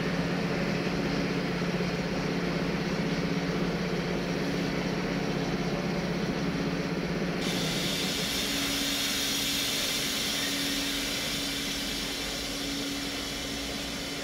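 Loaded freight train of log wagons rolling away on the rails: a steady rumble of wheels on track with a steady hum, fading slightly near the end.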